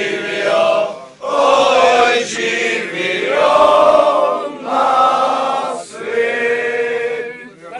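A group of men singing together, held notes in several phrases with short breaks between them.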